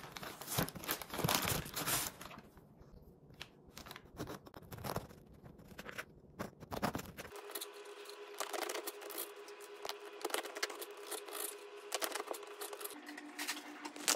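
Paper bakery bag crinkling and rustling as a crusty, flour-dusted dark loaf is pulled out of it, then, about halfway through, a bread knife sawing through the crust on a wooden cutting board in repeated scraping strokes.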